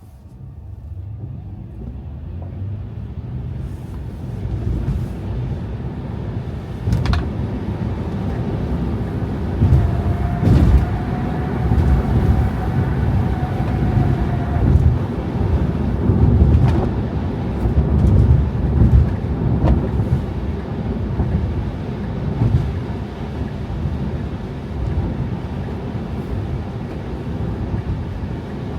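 Car driving on a snow-covered road: a low rumble of engine and tyre noise that grows louder over the first several seconds as the car picks up speed, then holds steady. A few brief knocks sound now and then.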